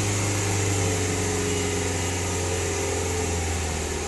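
VW Passat 2.0T FSI turbo four-cylinder engine held at a raised speed of about 3,000 rpm, a steady engine note that eases off slightly near the end.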